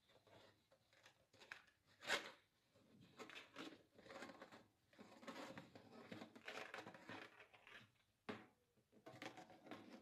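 Grey corrugated plastic dishwasher hose being uncoiled and handled: faint rustling and rubbing, with a sharp click about two seconds in and a shorter one past eight seconds.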